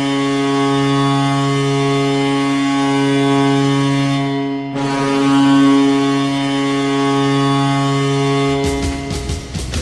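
Tampa Bay Lightning's 2004 goal horn blowing after a goal: a loud, steady, low horn tone rich in overtones, sounded in two long blasts with a short break about halfway through. Near the end the horn stops and a rock goal song with drums begins.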